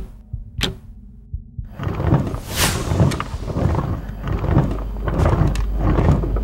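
Cartoon sound effects: a grandfather clock ticking twice, then a whoosh about two and a half seconds in, followed by a rocking chair rocking on its own with a regular low knocking, about two knocks a second.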